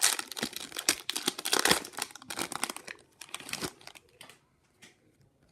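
Upper Deck hockey card pack wrapper being torn open and crinkled: a dense run of sharp crackles for about four seconds, then only a few faint rustles.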